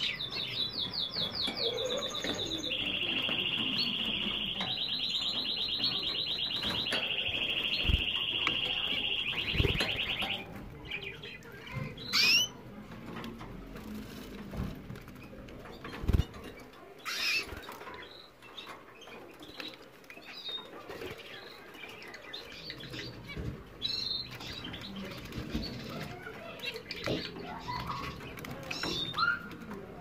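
Canary singing a long song of rapid trills, held at a few steady pitches, for about the first ten seconds. After that come scattered splashes and wing flutters as canaries bathe in a shallow water dish.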